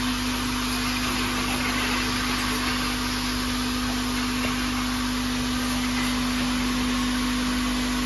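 Flat-bottle filling, plugging and capping machine running: one steady hum with a constant hiss over it.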